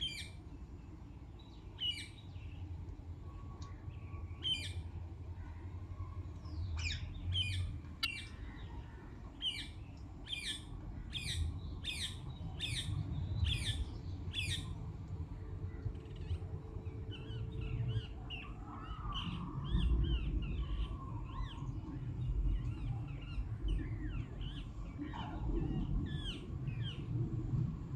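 Parrots squawking in short, sharp calls, repeated about twice a second through the middle, then a looser run of softer chirps near the end, over a low rumble.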